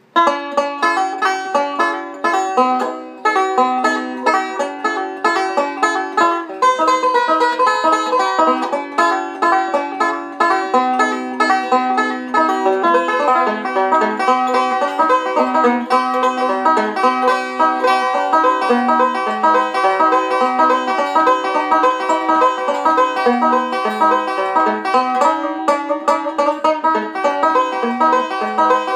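Solo bluegrass banjo: a resonator banjo picked in fast, continuous rolls of short, bright notes.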